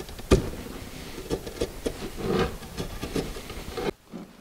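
Knife cutting and peeling a strip of old nylon skin off a wooden kayak cockpit coaming: scraping and rubbing with scattered small clicks, and one sharp click just after the start. The scraping stops abruptly near the end.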